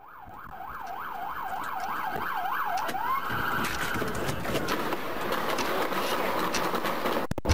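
Police siren in a fast yelp, its pitch rising and falling nearly three times a second, fading in from silence. After about three seconds it gives way to a dense rushing noise with scattered clicks.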